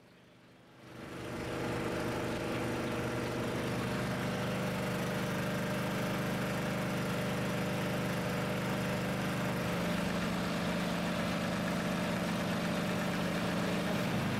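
An engine running steadily, with a slight change in its tone about ten seconds in.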